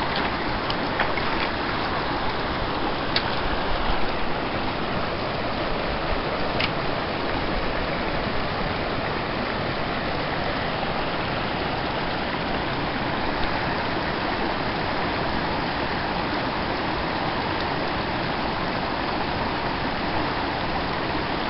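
Steady rush of a shallow, rocky mountain stream running over small rapids, with a few light clicks in the first several seconds.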